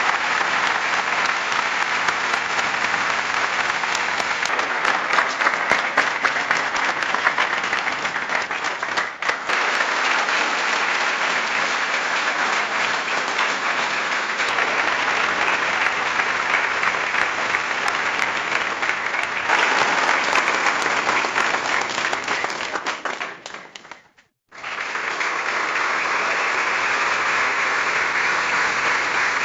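Audience applause: a large crowd clapping densely and steadily, in several recordings joined one after another. Near the end one round fades away to a moment of silence before another begins.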